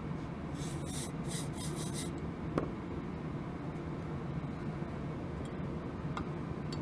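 Metal tool scraping debris from the bottom of a motorcycle carburetor's float bowl: a run of short scratchy strokes about a second in, a sharp tick, and a few fainter scrapes near the end.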